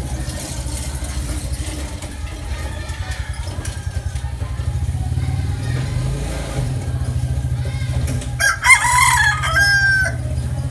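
A rooster crows once, about eight and a half seconds in, a call of about a second and a half that ends on a held note. A steady low rumble runs underneath.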